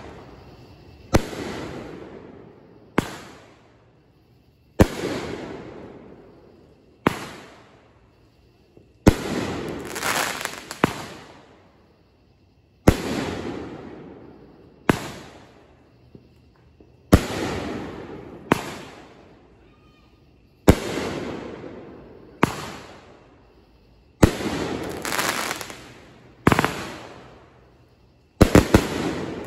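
Aerial fireworks shells bursting one after another, a sharp bang about every two seconds, each followed by a rolling echo that dies away; near the end two bangs come in quick succession.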